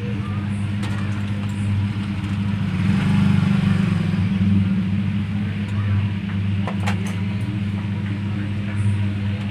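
A steady low hum, with a few light clicks and taps.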